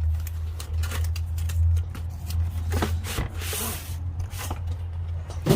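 Handling noise of a blow-molded plastic tool case and its packaging: irregular clicks and knocks, a longer scraping rustle about three and a half seconds in, and a sharp knock near the end, over a steady low hum.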